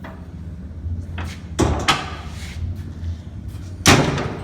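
Metal door and latch of a vertical cardboard baler being opened: several clanks and knocks, the loudest near the end.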